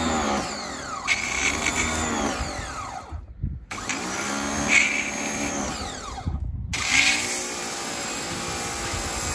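Hyundai HYB80 electric pressure washer running as its jet is fired onto asphalt, its motor whine starting up several times and sliding down in pitch between starts, with the hiss of the spray. The pump is drawing its water from a jug rather than a tap.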